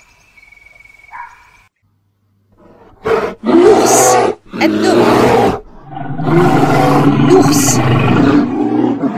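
A faint high steady tone with two short chirps, then a brief silence. From about three seconds in, a bear roars loudly in a series of long calls.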